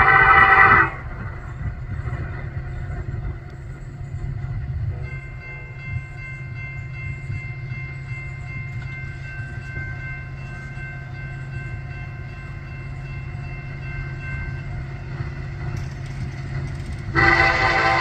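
Diesel freight locomotive rumbling steadily, with blasts of a five-chime air horn: a loud horn chord cuts off suddenly just under a second in, and another starts loudly near the end.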